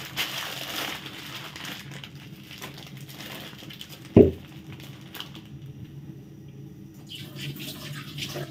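Thin plastic bag crinkling as hands work it, fading after the first couple of seconds, then a single short knock about four seconds in and faint rustling near the end, over a low steady hum.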